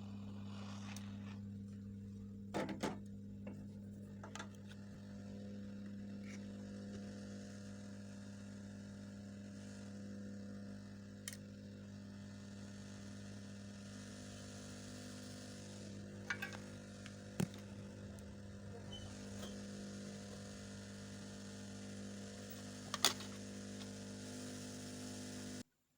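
Hot-air rework station running with a steady electrical hum and blower hiss, with a few sharp clicks and taps scattered through; the hum cuts off abruptly just before the end.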